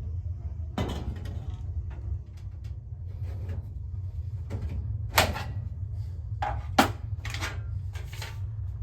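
A handful of sharp knocks and clatters, like doors or panels being handled, over a steady low hum.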